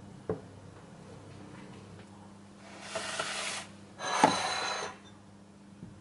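Kitchen handling sounds: a light knock, then two rasping, scraping noises about a second long each, the second with a sharp clunk partway through, as dishes and a plastic food container are handled.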